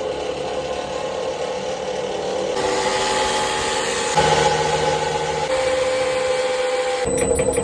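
Unimac 105 lb commercial washer running: a steady machine hum with several held tones, shifting abruptly a few times.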